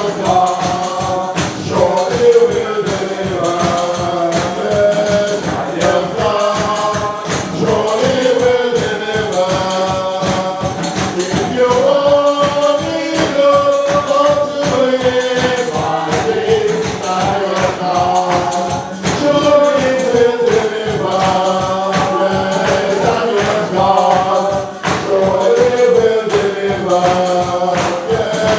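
Gospel praise song sung by a group of voices over a band, with tambourine and percussion keeping a fast, steady beat.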